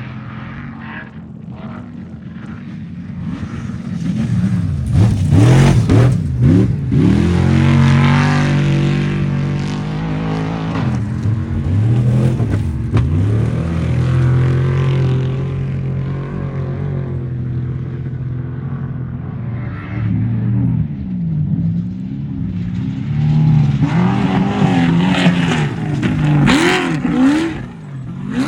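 Off-road race vehicles' engines revving hard as they go by, the engine note rising and falling in pitch. It is loudest from about four seconds in and again near the end, with a steadier engine drone in between.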